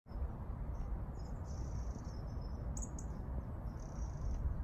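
Wind buffeting the phone's microphone, a steady low rumble, with high, thin bird chirps coming and going over it several times.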